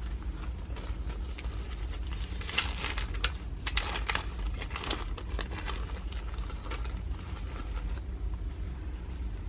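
Crinkling of plastic wrapping as menstrual pads are handled, in crackly bursts mostly between about two and five seconds in, over a low steady hum.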